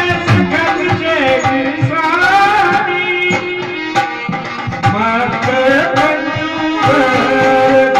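Live accompaniment music: a two-headed hand drum (dholak) playing a quick, steady rhythm under a held melody line that bends in pitch now and then.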